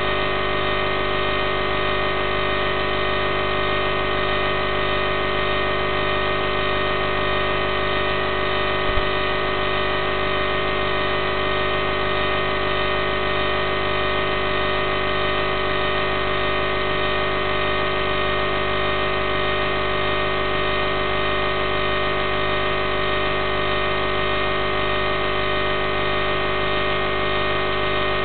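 Steady electronic buzz made of many fixed tones, with no change in pitch or level: the noise carried on the audio channel of an analog FPV video link while the drone sits landed and disarmed. A single brief click about nine seconds in.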